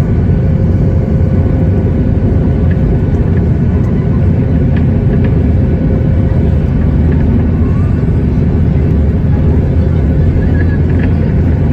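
Airliner engines running with a loud, steady rumble and a faint steady hum, with a few light ticks along the way.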